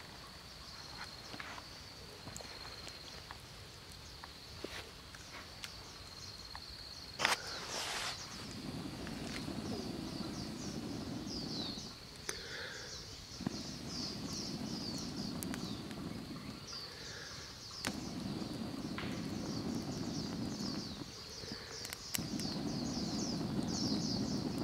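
Outdoor forest ambience: a steady high insect drone, with many quick chirps of birds or insects from about eight seconds in. A single sharp crack about seven seconds in, and stretches of low noise that come and go every few seconds.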